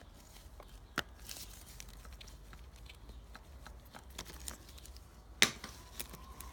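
Handling noise from a motorcycle wiring harness and its plastic plugs: soft rustling with a few sharp clicks, the loudest about a second in and again near the end.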